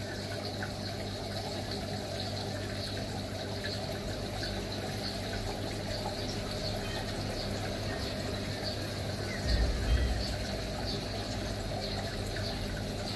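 Steady low hum of an aquarium pump running, with a faint watery trickle over it. A low bump about nine and a half seconds in.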